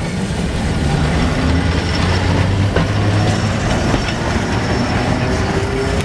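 Vintage tram, B.K.V.T. No. 1074, passing close by: a low rumble of wheels on rails and traction running gear, loudest about halfway through as it goes past.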